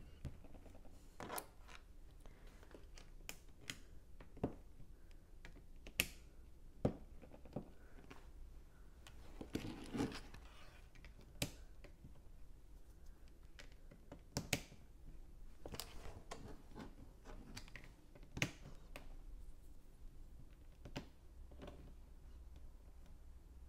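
Small plastic Lego pieces clicking and tapping at irregular intervals as tiles and plates are handled and pressed into place, with a short rustle of handling about ten seconds in.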